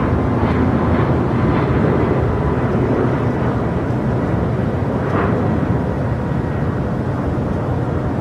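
Jet airliner engines running, a steady loud rush of noise with a faint high whine.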